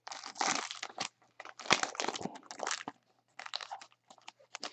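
The wrapper of a Panini Prizm Jumbo basketball card pack being torn open and crumpled by hand, in a run of short rustling bursts, the loudest a little under two seconds in.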